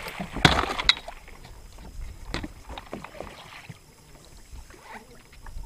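A hooked muskie thrashing at the surface beside the boat: a loud splash about half a second in, then lighter splashing and scattered knocks.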